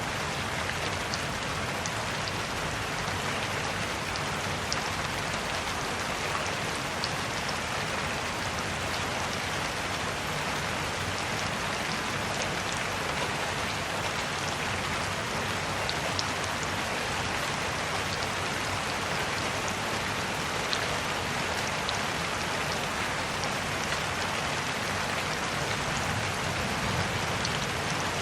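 Steady rain falling, a constant hiss with the scattered ticks of individual drops hitting a surface.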